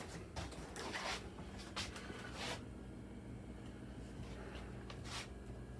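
Faint handling noise as the recording camera is picked up and repositioned: a few short rustles and scrapes, the clearest about a second in and two and a half seconds in, over a low steady hum.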